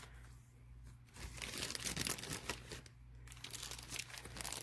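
Small plastic zip-top bead bag crinkling as it is handled, mostly in the middle of the stretch, with lighter rustles near the end, over a faint steady low hum.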